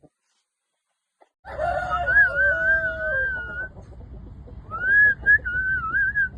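Rooster crowing twice: a long, wavering crow starting about a second and a half in, then a second one near the end, over a low rumble.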